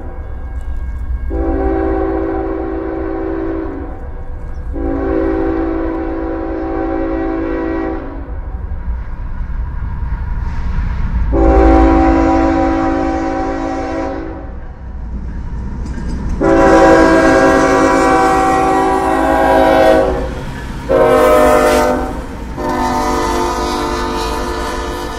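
Multi-chime air horn of a CSX diesel freight locomotive sounding a series of long blasts, then a short one and a final long one near the end, the standard crossing signal, growing louder as the train approaches. Underneath runs the steady low rumble of the diesel engines and rolling train, and near the end the lead locomotives pass.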